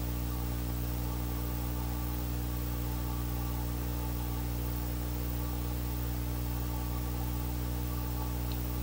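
Steady electrical hum with a stack of low, even tones under a constant hiss. This is the background noise of the camera's audio system, and no clear animal sound stands out above it.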